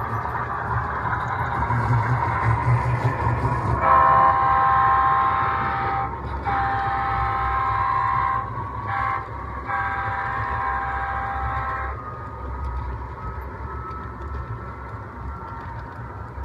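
Model Santa Fe diesel locomotives' horn, from a sound-equipped model train, sounding the grade-crossing pattern: two long blasts, a short one, then a long one. A steady low rumble of the passing train runs underneath.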